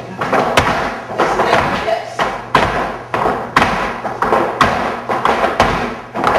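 Flamenco dancers' shoes striking a wooden floor in rhythmic footwork, a strong stamp about once a second with lighter taps in between.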